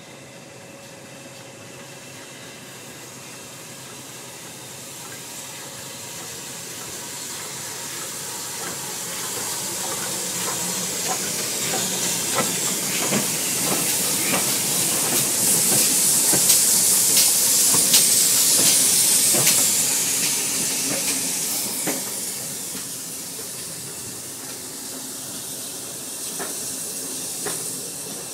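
Two steam locomotives working a train in tandem, a BR Standard Class 2MT 2-6-0 and a GWR 9400 class pannier tank, passing by. The hiss of steam and a run of sharp clicks and knocks from the wheels build up as the train approaches, are loudest a little past the middle, then fade as it moves away.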